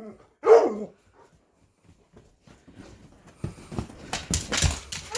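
Excited pet dog gives one loud call that falls in pitch about half a second in, the sound of a dog greeting its returning owner. After a quiet stretch, a run of clattering clicks and scuffles fills the last couple of seconds.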